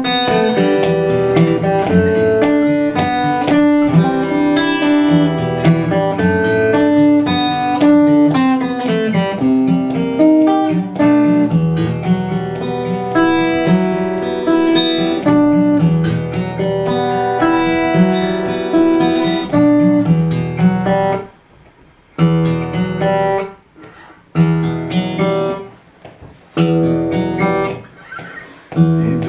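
Acoustic guitar played alone, an instrumental passage of picked notes and strummed chords between sung verses. About two-thirds of the way in it breaks into separate chords, each followed by a short pause.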